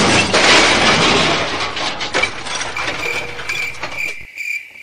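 A loud rushing, rattling noise that fades away over about three seconds, then a cricket chirping steadily, about three to four chirps a second.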